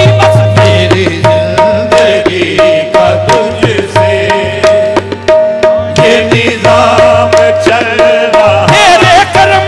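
Qawwali music: tabla strokes keeping a fast rhythm under a repeated steady melodic note, with singing in places, most clearly near the end.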